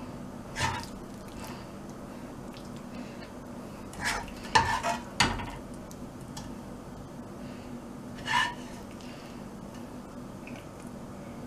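Spatula stirring and tossing vegetable Manchurian balls in thick sauce in a pan, with short scrapes and clinks against the pan: one about a second in, a cluster of several in the middle, and another near the end. Under it runs a steady low hum.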